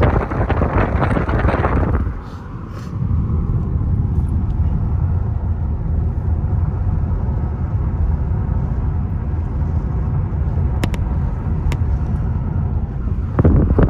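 Wind buffeting the microphone for about two seconds, then the steady low rumble of a car's engine and tyres heard from inside the cabin while driving. A burst of wind noise returns near the end.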